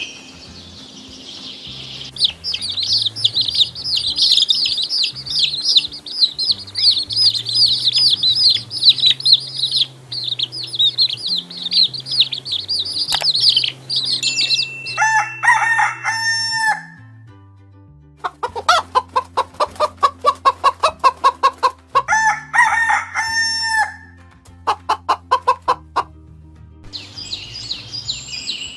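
Chickens calling: a long stretch of dense, high chirping, then lower pitched calls and a quick run of repeated clucks, with the chirping returning near the end.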